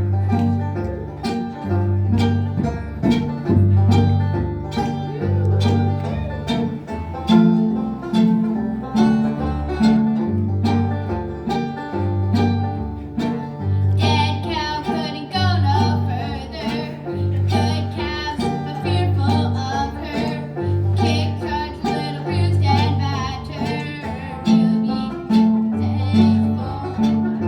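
Acoustic bluegrass instrumental: strummed guitar and picked banjo over a steady low bass line. About halfway through, a brighter, busier picked part comes in.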